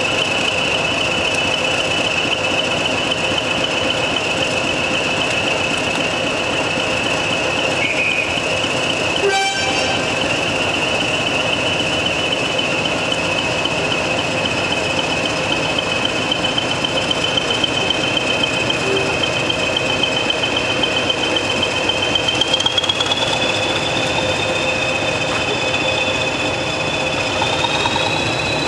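Two BR Class 20 diesel locomotives working in tandem, their English Electric engines running with a loud, steady high turbocharger whistle over the engine and wheel noise. The whistle rises in pitch in two steps near the end as the engines are opened up. A single sharp knock comes about nine seconds in.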